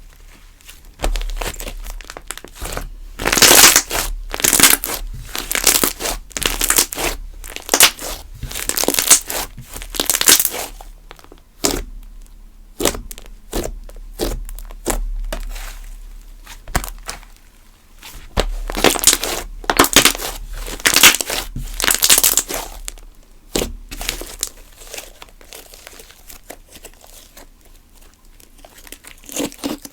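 Glossy slime being squished and stretched by hand, giving sticky crackling and popping in two long runs, with scattered single clicks between them.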